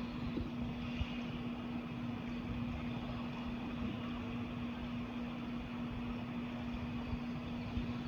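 Steady mechanical drone: an even rushing noise with a constant low hum under it, like a distant engine running.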